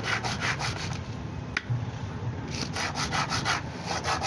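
Toyota 2AZ engine camshaft bearing cap being rubbed back and forth on rough sandpaper, about four rasping strokes a second. The strokes stop for a moment about a second in, with a single sharp click, then start again. The cap's face is being taken down a little to tighten the camshaft's clearance and stop its noise.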